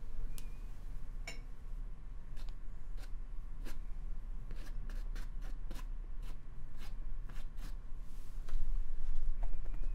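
Paintbrush dabbing and tapping acrylic paint onto a stretched canvas: a string of irregular sharp little taps, with a louder, scratchier run of brushing near the end.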